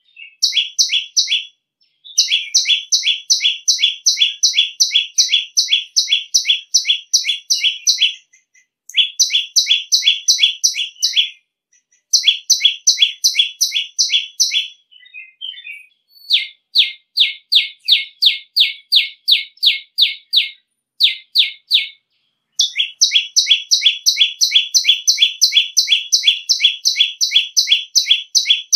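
Common tailorbird calling: a loud, shrill run of quick sharp notes, about four a second, repeated in long series broken by short pauses.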